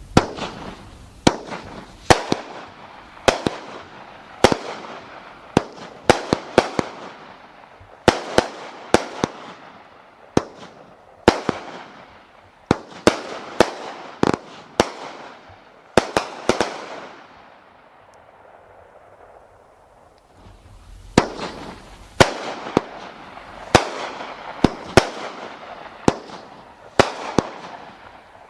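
Consumer 200 gram fireworks cakes firing: a run of sharp aerial bangs, about one a second, each trailing off in a fading hiss. The shots stop for about three seconds past the middle and then resume.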